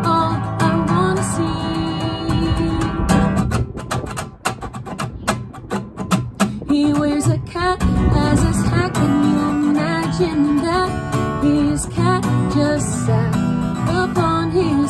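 A woman singing to her own strummed acoustic guitar. A few seconds in, the voice pauses while the guitar is strummed alone, then the singing resumes.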